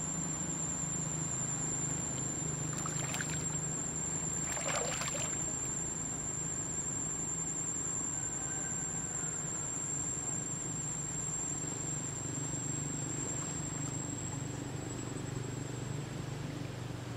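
Water splashing and lapping around swimming macaques, with two brief splashes about three and five seconds in, over a steady low hum and a thin high whine.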